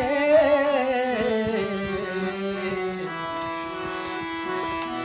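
A devotional folk bhajan: the singer holds the last word of the line and slides it downward, then the accompaniment carries on with a steady held tone and a few light drum strokes near the end.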